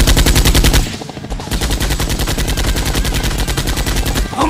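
Rapid automatic cannon fire from an Apache attack helicopter's chain gun (a film sound effect), about ten shots a second in two long bursts. There is a short break about a second in, and the second burst is a little quieter.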